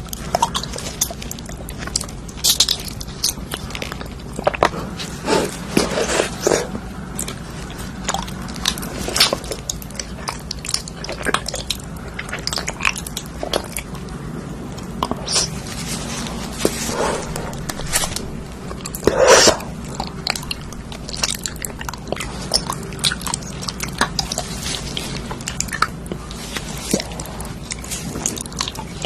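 Close-up eating sounds: bites and chewing with irregular crisp crunches, the loudest crunch about 19 seconds in.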